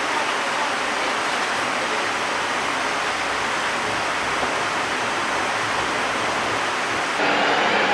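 Light rail car running, heard from inside the passenger cabin: a steady rushing of wheels and track noise. About 7 seconds in it cuts to a louder train sound with a steady high whine.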